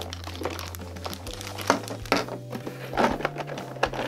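Background music with steady low notes, over the crinkling of plastic packaging bags and short knocks and rustles as plastic toy parts are lifted out of a cardboard box.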